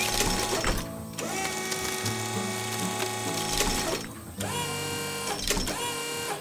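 Background music layered with mechanical whirring sound effects, dropping out briefly about a second in and again about four seconds in.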